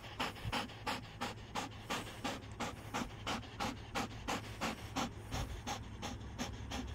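A young brindle Dutch Shepherd panting rapidly and steadily with its mouth open, at about four breaths a second.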